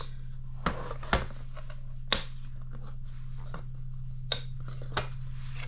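Handling clicks and knocks of a picture frame being taken apart, its hardboard backing lifted out: about half a dozen short sharp knocks at irregular intervals over a steady low hum.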